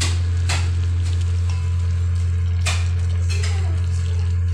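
Wooden spoon stirring moringa leaves and chicken in a pot of soup, with a few sharp knocks of the spoon against the pot. A loud steady low hum runs underneath.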